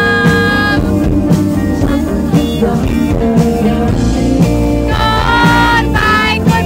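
Live band music: a singer's voice over strummed acoustic guitar, electric bass and drum kit. A held sung note opens, the band plays on with the drums keeping time, and the singing comes back about five seconds in.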